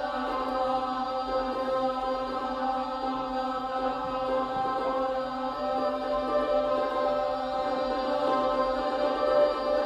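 Choir singing a slow chant on long held notes, several voices sustaining steady pitches together as a chord.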